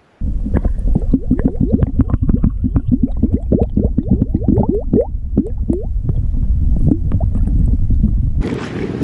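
Plastic drink bottle being filled under water in a creek, heard through an underwater camera: a fast run of glugs and gurgles as air bubbles out of the bottle. It turns to a rushing hiss near the end.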